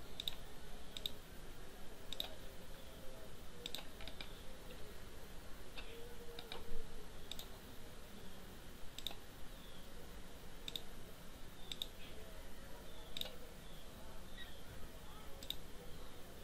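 Computer mouse clicking, single and close double clicks at irregular spacing of about once a second, with one louder click about seven seconds in.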